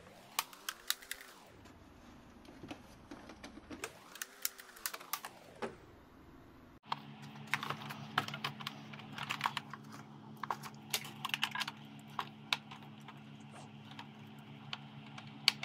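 Scattered small clicks and taps of the plastic shell and screws of a Xiaomi S10+ robot vacuum being taken apart by hand with a pry tool and a small screwdriver. About halfway through, a steady low hum comes in under the clicking.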